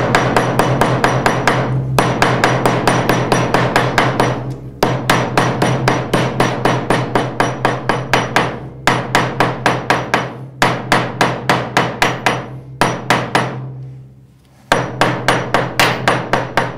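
Round-faced steel hammer rapidly pounding beef back sinew on the small anvil face of a bench vise, about six blows a second in runs of a few seconds with short pauses between. The pounding softens and loosens the sinew so it begins to split into separate fibres.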